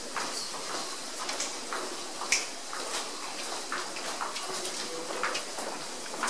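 Footsteps of a crowd of walkers on a tiled floor, irregular hard-soled taps several a second, one louder tap about two and a half seconds in.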